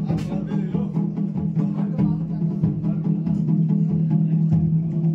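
Traditional Himachali procession music: drums beating a rhythm over a steady, sustained drone.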